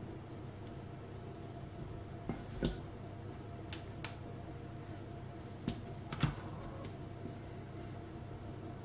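Three pairs of light taps and clicks as pepper strips are laid by hand onto a parchment-lined baking tray, over a faint steady low hum.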